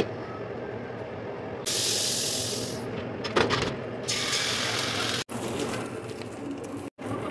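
Hot oil sizzling in a nonstick frying pan with an egg frying, a steady hiss that turns louder and sharper in a couple of short stretches. One sharp click partway through, and the sound drops out briefly twice.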